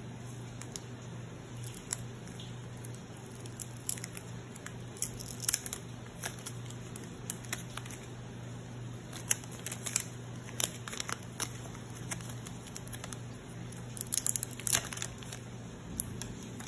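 Clear plastic protective wrap crinkling and crackling as it is handled and pulled off a new smartwatch, in irregular bursts of small clicks, busiest about a third of the way in, in the middle and near the end.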